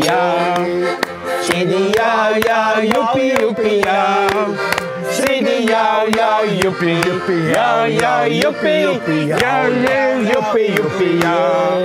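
Accordion playing a lively folk tune while the accordionist sings, with hand-clapping keeping time on the beat.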